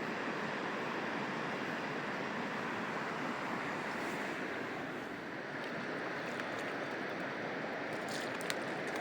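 Steady rush of flowing river water, with a few faint clicks near the end.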